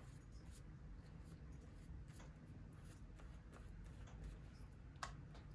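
Faint scratching and rustling of handwork on a paper journal page, with scattered small clicks and one sharper tap about five seconds in.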